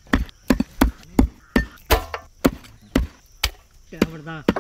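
Knife chopping on a wooden board in a steady run of sharp strokes, about four a second.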